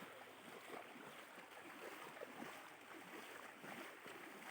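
Faint, steady rushing of flowing floodwater, with small gurgles and splashes.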